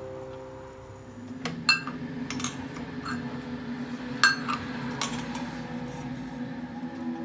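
Kitchen utensils clinking and tapping against dishes and pots: a ringing tone fades out in the first second, then come several separate clinks, some with a short ring, over a steady low hum that starts about a second in.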